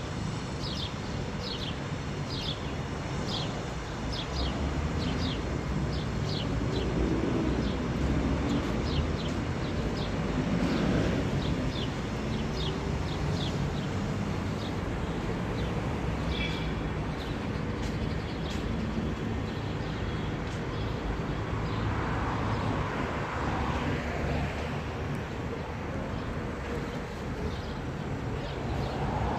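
City street ambience: a steady low traffic rumble, with a run of short, high chirps repeating about one and a half times a second through the first two-thirds. A vehicle swells past near the end.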